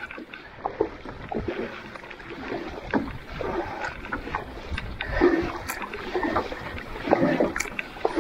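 Double-bladed paddle strokes pulling through calm lake water beside a solo canoe, alternating sides. There is a swell of splashing and swirling water roughly every two seconds.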